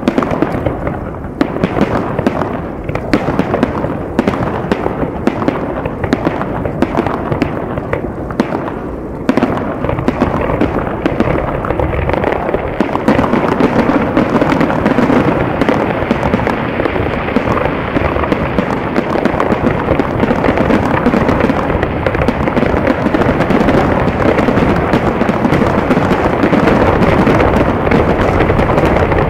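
Aerial fireworks shells bursting in a quick string of separate bangs, which thicken about nine seconds in into a near-continuous crackling barrage that grows louder.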